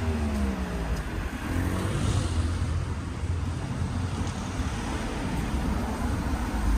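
A car going by on the street, its engine note falling in pitch in the first couple of seconds, over a steady low rumble.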